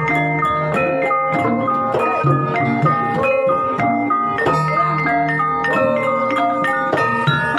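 Javanese ebeg (Banyumas horse trance-dance) accompaniment: mallet-struck keyed instruments ringing out a repeating melody over regular drum strokes.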